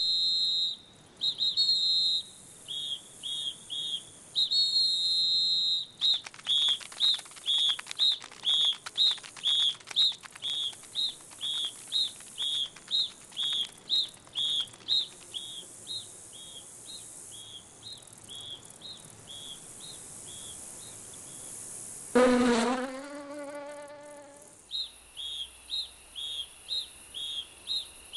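Cartoon insect sound effects: high whistling chirps, held at first and then pulsing in quick runs of about two a second. Past the two-thirds mark comes a single lower, wavering call that dips and then levels off, before the chirping resumes.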